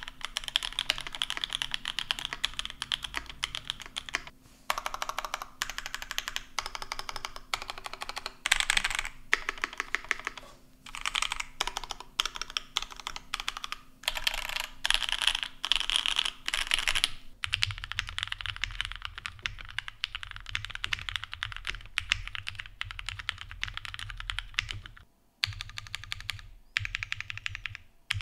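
Typing test on a Chiwi60 60% mechanical keyboard with lubed and filmed OP Black switches, an aluminium plate, a brass back piece and GMK keycaps: fast runs of key clacks with short pauses. About two-thirds through it changes to a plateless 7V 75% keyboard with lubed and filmed Gateron Lion switches and GMK keycaps, typed over a low hum.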